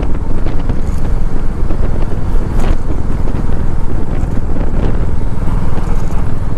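Motorcycle ridden at speed: engine and road noise under loud, fluttering wind buffeting on the rider's microphone.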